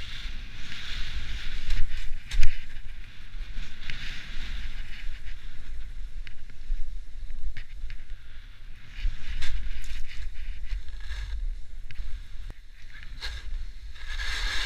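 Skis scraping and hissing over firm, wind-packed snow on a steep descent, the hiss swelling in surges with each turn, over wind buffeting the microphone. A sharp knock comes about two and a half seconds in.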